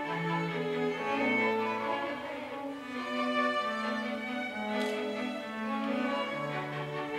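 String quartet of two violins, viola and cello playing a passage of long, sustained bowed notes, with the cello holding the low line beneath the violins.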